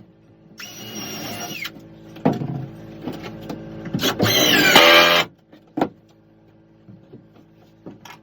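A handheld electric power tool, like a cordless drill, runs in two short bursts of about a second each. The first holds a steady high whine; the second winds up in pitch. A few light knocks come in between.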